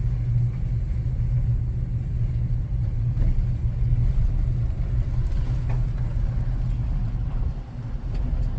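Low, steady rumble of a vehicle driving.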